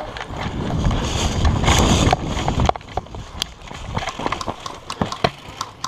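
Player moving off quickly across the field: a rustling rush of gear and brush on the microphone for about the first two and a half seconds, then a string of irregular footfalls and knocks.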